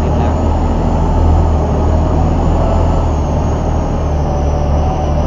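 A river tourist boat's engine running steadily under way, heard from on board. It makes a loud, even low drone with a faint whine above it, over a hiss of rushing water.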